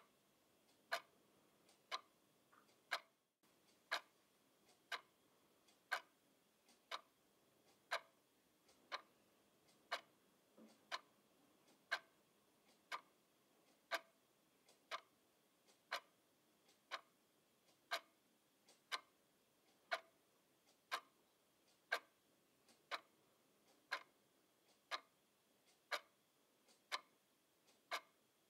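Quartz twin-bell alarm clock ticking once a second: crisp, even clicks of the second hand stepping.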